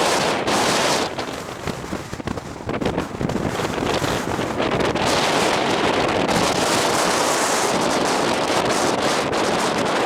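Strong wind blowing across the microphone: a loud rushing noise that eases for a moment about two seconds in, then holds steady.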